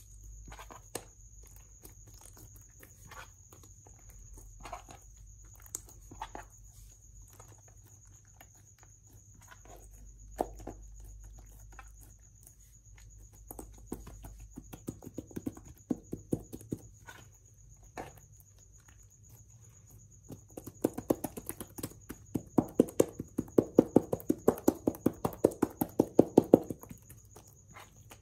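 Clear slime being squeezed and pressed by hand, giving sticky clicks and pops. The clicks are scattered at first, then come in a fast, loud run over the last third.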